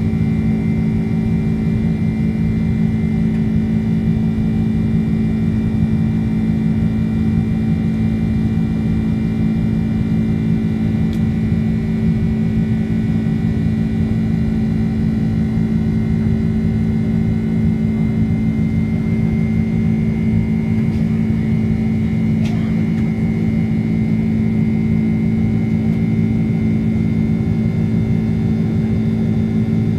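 Boeing 767-300ER's GE CF6 turbofan engines at climb thrust, heard from a cabin window seat: a loud, steady deep drone with a faint high whine over it.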